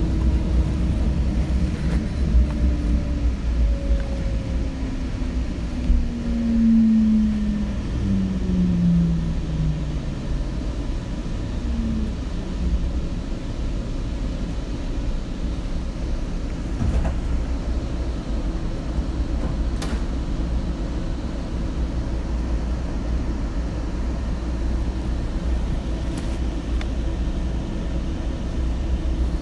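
Inside a Seattle Link light rail car: a steady low rumble with the electric drive's whine falling in pitch over the first ten seconds or so as the train slows into the station, then a steady rumble with a couple of faint clicks.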